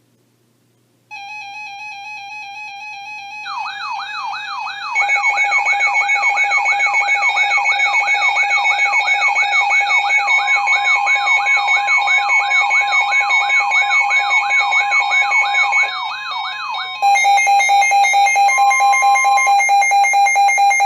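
Electronic emergency alert tones: a steady tone comes in about a second in, then a warbling tone that rises and falls about twice a second plays over steady tones, and near the end it changes to a fast-pulsing pair of steady tones.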